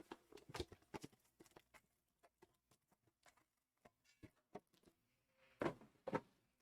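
Faint scattered clicks and taps of hands handling trading-card boxes and packs, with two louder handling noises about five and a half and six seconds in.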